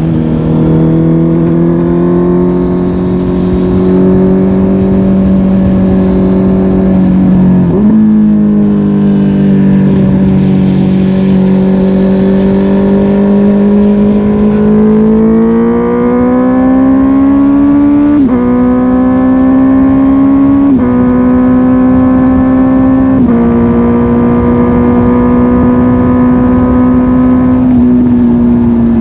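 Honda CB650R's inline-four engine running through a MIVV GP PRO Carbon aftermarket exhaust, pulling steadily with its pitch climbing, broken by sudden steps at gear changes about 8, 18, 21 and 23 seconds in. It then holds a steady cruise and eases off near the end.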